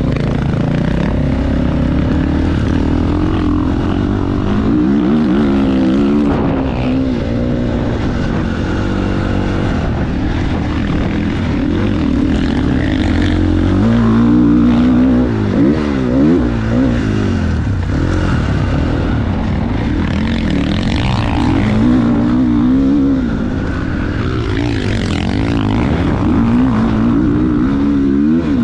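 GasGas MC450 single-cylinder four-stroke motocross bike being ridden, the engine note rising and falling again and again as the throttle is opened and closed through the gears, over a heavy low rumble of wind on the microphone.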